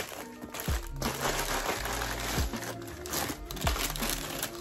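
Plastic packaging crinkling and rustling as it is handled and opened.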